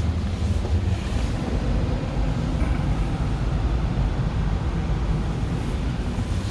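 Upstairs furnace running with a steady low rumble.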